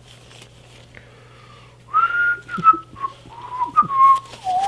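A person whistling a short tune, starting about two seconds in: a few held notes that mostly step downward. Soft rustling of a cloth glove being pulled on over a bandaged hand is heard underneath.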